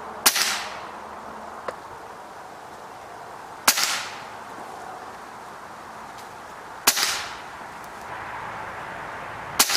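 Air Venturi Avenger .25 caliber regulated PCP air rifle firing JSB Exact 25.29 grain pellets: four sharp shots about three seconds apart, each with a short echo. The chronograph readings stay within a few points of 860 from shot to shot.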